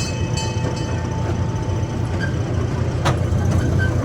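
Zoo passenger train running, heard on board: a steady low rumble, with a faint thin whine in the first half and one sharp click about three seconds in.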